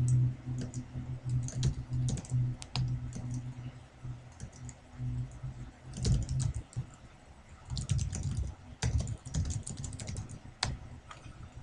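Computer keyboard keys clicking in irregular runs of typing, with a short pause partway through, over a low steady hum in the first half.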